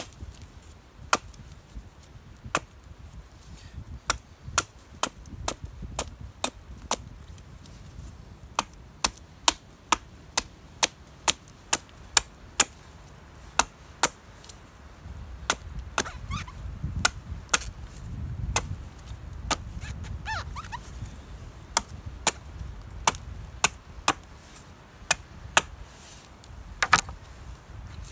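Wood being chopped with an axe: a long run of sharp, crisp strikes, mostly about two a second with a few short pauses, over a low rumble of wind.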